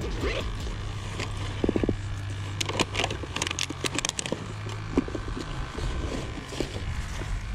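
Hand rummaging in a backpack: rustling with a cluster of sharp clicks about three to four seconds in, over a steady low hum.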